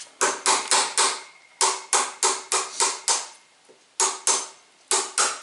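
Claw hammer striking a wood chisel, chopping out a pocket in a timber for a brace: sharp blows in short runs of two to six, about three or four a second, with brief pauses between runs.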